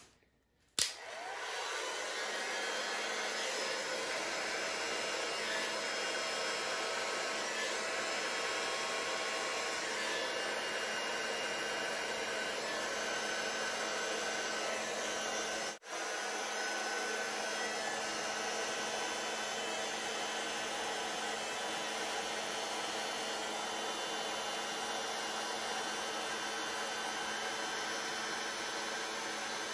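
Electric heat gun blowing steadily, an even rush of air with a faint motor hum. It switches in suddenly about a second in and cuts out for an instant about halfway through.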